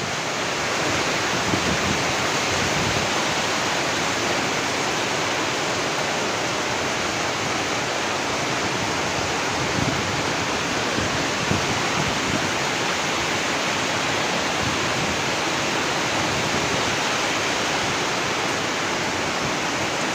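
Fast-flowing floodwater rushing with a steady, unbroken roar.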